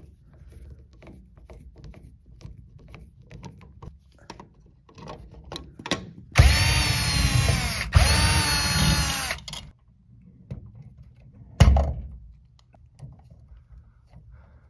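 Cordless power driver running in two bursts with a whine that rises and falls, backing out the receptacle's mounting screws, then one more short burst a couple of seconds later. Light clicks of screws and the plastic outlet being handled come before it.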